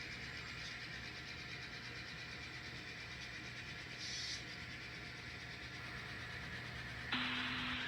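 Sound-equipped N scale diesel locomotive running during switching: a steady engine sound and motor whir from the small model, with a brief hiss about four seconds in and a sudden louder hiss over a steady low tone about seven seconds in.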